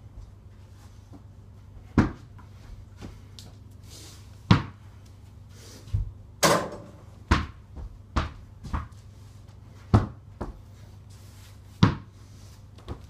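A small ball knocking against an over-the-door mini basketball hoop's backboard and rim and bouncing on a wooden door and floor: about nine sharp, separate thumps, one near the middle followed by a short rattle. A steady low hum runs underneath.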